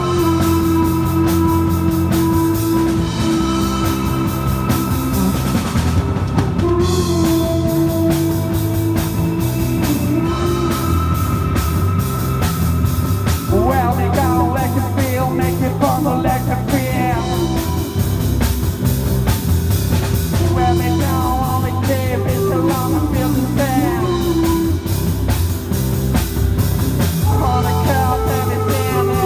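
Live rock band jam with drum kit, electric guitar and keyboard, and a lead line at the microphone of long held notes that bend and waver in pitch.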